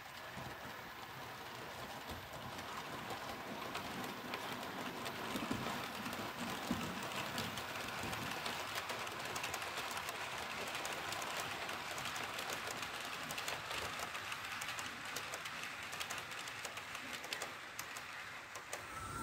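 Model freight train, a locomotive hauling a long rake of hopper wagons, running past on the layout's track: a steady rolling rattle full of small clicks from the wheels on the rails. It grows louder as the train nears and eases off near the end.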